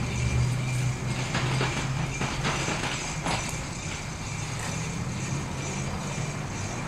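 Quarter-scale electric model streetcar running on its track: a steady low hum, with a few sharp clicks in the first half.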